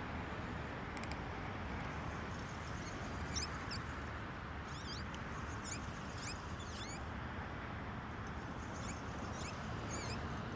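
Small birds giving short, high, quick chirps in scattered bursts over a steady low background rush.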